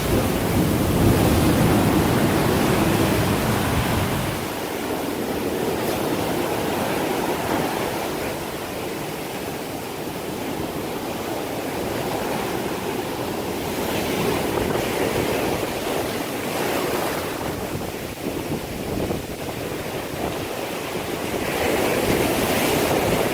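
Ocean surf: waves breaking and washing up on the shore in a steady rush that swells and falls as each wave comes in, with a heavier low rumble for the first four seconds.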